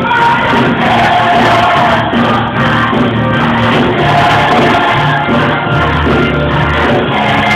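Church choir singing loudly with instrumental accompaniment, the voices blended and continuous.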